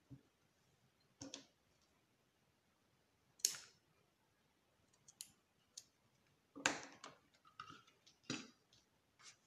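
Irregular light clicks and taps from hands working a linen ribbon bow on a small card box, with the sharpest ones about three and a half and about seven seconds in.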